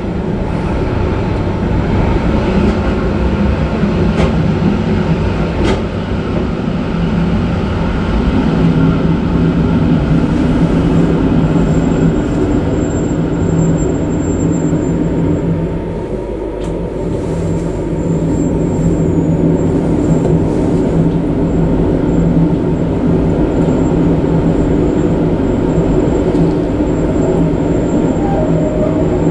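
Electric metre-gauge Matterhorn Gotthard Bahn train running, a steady low motor and wheel drone. A couple of sharp clicks from the wheels come about four and six seconds in.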